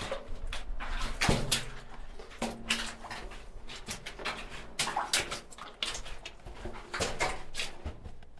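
Irregular scuffs and crunches of footsteps on a damp, gravelly tunnel floor, with a sharper knock or scrape about a second in.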